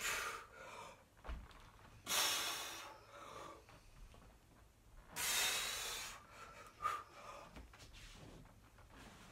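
A man breathing hard under the effort of a Turkish get-up with a 24 kg kettlebell: three loud, forceful breaths, each under a second long, spaced a few seconds apart, with a couple of soft thumps between them.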